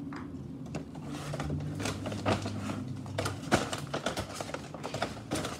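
Silicone pop-it fidget toy shaped like a shark, its bubbles pressed one after another in a quick, irregular run of popping clicks.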